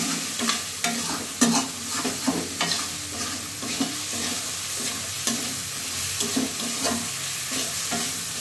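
A metal spatula scrapes and knocks around a metal kadai, stirring a thick fried-down onion-tomato masala, with irregular scrapes and clinks one to two a second. Under it runs a steady sizzle of the masala frying in oil.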